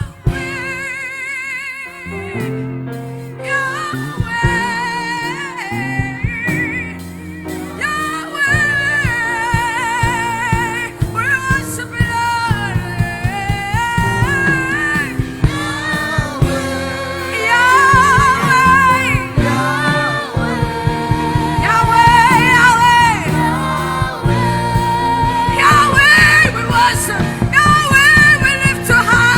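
Gospel worship song: a singer with heavy vibrato over a sustained instrumental backing, growing louder in the second half.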